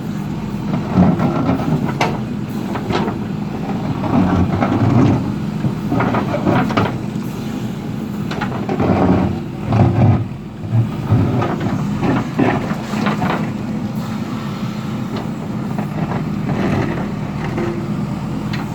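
Diesel engine of a JCB earthmover running steadily under load, rising in louder surges several times, with scattered sharp knocks and clanks as it works.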